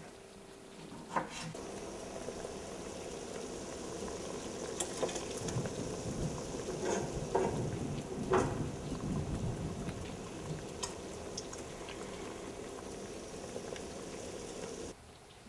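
Kitchen cooking sounds: a steady hiss like food cooking on the stove, with a few sharp knocks of a knife on a wooden cutting board near the middle. The hiss stops abruptly near the end.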